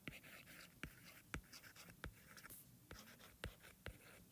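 Faint handwriting: scratchy pen strokes with light taps and clicks scattered throughout.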